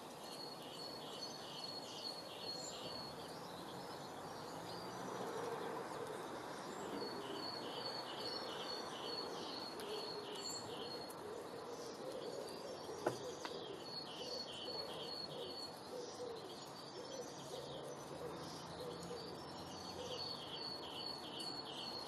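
Garden birdsong: a songbird sings short phrases of quick, evenly spaced high notes, repeated in spells with pauses between, over a steady low background noise. A single sharp click about thirteen seconds in.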